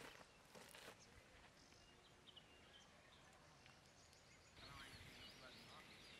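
Near silence: faint outdoor ambience, with a few faint bird chirps that grow busier in the second half.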